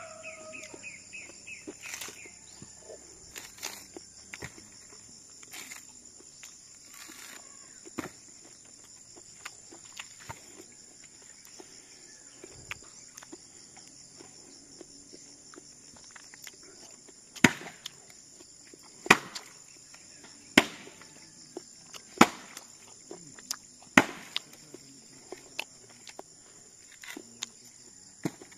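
Coconuts being struck open with a long metal tool: five sharp chopping strikes about a second and a half apart, with fainter knocks and handling between. A steady high buzz of insects runs underneath.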